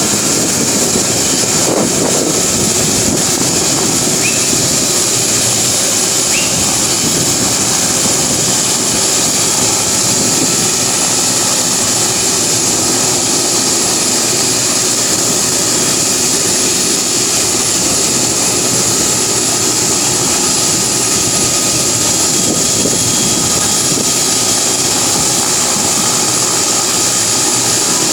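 MD 500 helicopter running close by: a steady, loud mix of turbine whine and rotor noise that holds even throughout.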